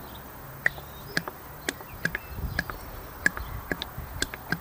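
Engine oil glugging out of a tilted plastic bottle into a filler funnel: a string of short, sharp glugs, about two or three a second and uneven, as air gulps back into the bottle.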